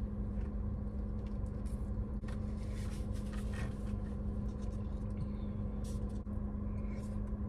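Steady low hum of a running car heard inside its cabin, with one constant low tone, and faint chewing and small clicks of someone eating.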